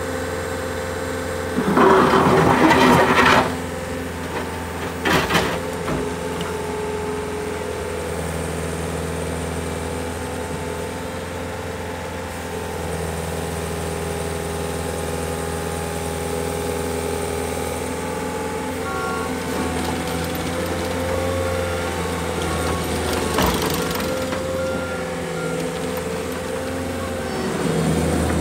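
Caterpillar 277 compact track loader's turbocharged diesel engine running steadily while the loader arms and bucket are raised and lowered. A loud noisy burst lasts about a second and a half starting about two seconds in, with a shorter one about five seconds in.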